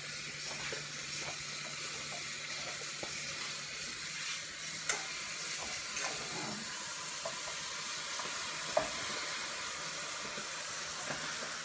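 A pot boiling on a kitchen stove, giving a steady hiss and sizzle over a low hum, with a few light clicks and knocks about 5, 6 and 9 seconds in.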